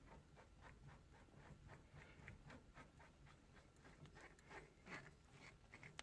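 Faint scraping and clicking of a resin shifter knob being twisted onto a Ford Model A's gear-shift lever, in a run of small irregular scrapes several times a second.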